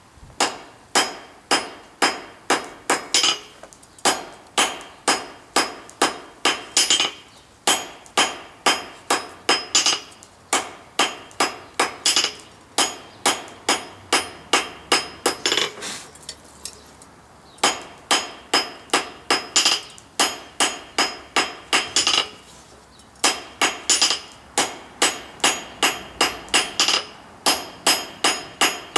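Hand hammer striking red-hot coil-spring steel on an anvil, drawing it out into a square awl: a steady run of about three ringing blows a second, broken by two short pauses in the second half.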